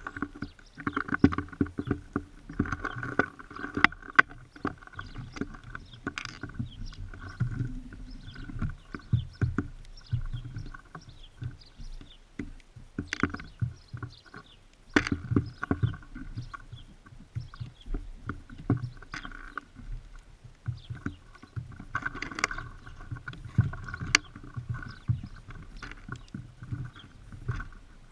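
Irregular taps, clicks and scuffs of small birds landing on a seed feeder and pecking at the seed, heard very close, with low knocks in between.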